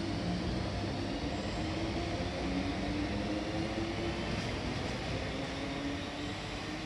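MTR East Rail Line electric multiple-unit train pulling out of the station: a steady rumble of wheels on rail with a low, wavering motor hum, easing off a little near the end as it moves away.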